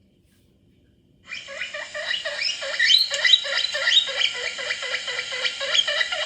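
Recording of a guinea pig wheeking, played through the MP3 player's small speaker. It starts suddenly about a second in, after near silence, as a run of repeated rising squeals with no bass.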